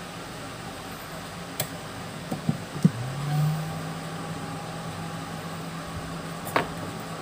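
Several sharp clicks of tools and parts being handled on the repair bench. About three seconds in, a small motor starts, rises briefly in pitch and then runs on steadily, over a constant low hum.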